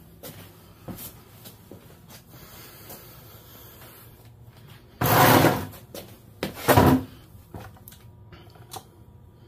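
Metal parts being handled on a steel frame: a few light clicks, then two short clattering scrapes about a second and a half apart, midway through.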